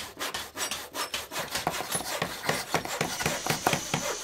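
A fast run of rasping, scraping strokes, about five a second.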